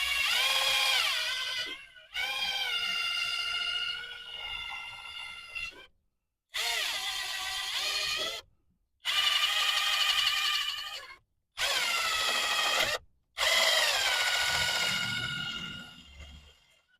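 Handheld power tool whining in six bursts, its pitch dropping as it bears down on the work, used to clean caked-on rust and grime off the ABS sensor area. Each burst cuts off abruptly.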